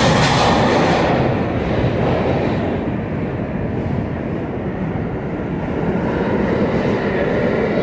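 New York City subway train noise echoing in an underground station. The hiss and rumble of a train that has just passed on the near track fades within the first second, leaving a low steady rumble. That rumble grows louder again near the end as the train at the far platform starts to pull out.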